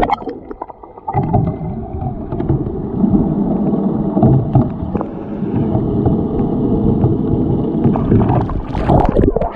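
Water heard through a submerged camera microphone: a dense, muffled churning rumble with a faint steady hum and scattered knocks. Near the end there is a brief louder rush.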